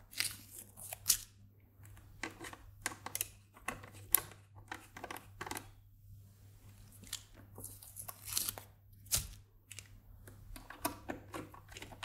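Small screwdriver turning socket screws into nuts through stacked acrylic panels: irregular short clicks, scrapes and taps of the tool and the acrylic being handled, with a sharper tap about 9 seconds in.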